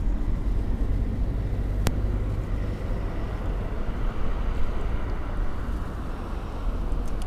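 Wind rumbling and buffeting on the microphone outdoors, with a single sharp click about two seconds in.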